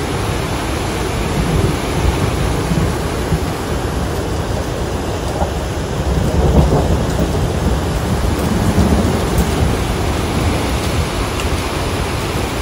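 Tahquamenon Falls: a wide waterfall pouring over a ledge, a loud, steady, deep rush of falling water.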